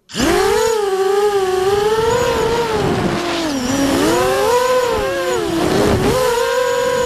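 Onboard sound of a Vortex FPV racing quadcopter: its brushless motors and propellers whine, the pitch rising and falling constantly with the throttle.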